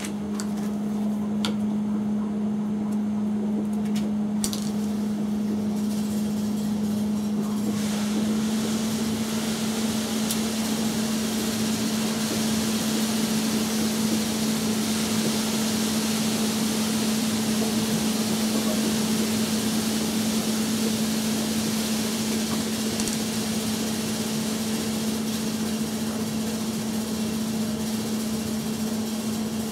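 Small engine of a Karumo GC-K300 slope mower running steadily at an even pitch. About eight seconds in, the pitch rises slightly and a hiss grows louder.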